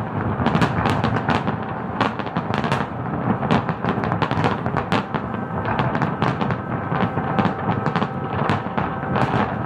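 Fireworks display: many shells bursting in quick, overlapping succession, sharp bangs and crackle over a continuous rumble.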